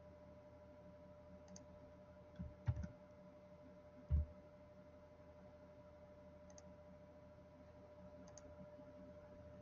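A few spaced computer mouse clicks, with two low thumps about 2.5 and 4 seconds in that are the loudest sounds, over a faint steady hum.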